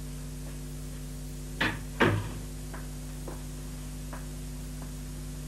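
Two sharp knocks about half a second apart, then a few faint footsteps on a floor as two men walk into a room. Under them runs a steady hum on the old soundtrack.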